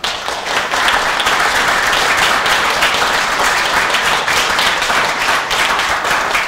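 Audience applauding: many hands clapping densely together. It breaks out suddenly and holds at a steady level.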